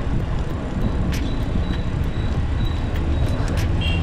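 Low, steady wind and road rumble from a bicycle riding along a road beside traffic, with a few short clicks or rattles about a second in and again near the end.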